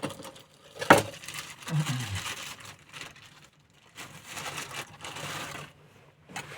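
Handling noises: a sharp knock about a second in, then two stretches of rustling and crinkling.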